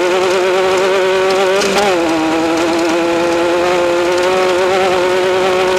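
Off-road race vehicle's engine running at steady, high revs, its pitch wavering slightly, with a short rise and drop in revs about two seconds in.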